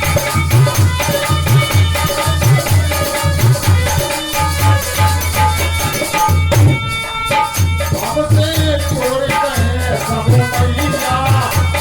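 Instrumental passage of a Bundeli devotional bhajan: a deep drum beating a steady rhythm under a rattling shaker, with a held melody line on top.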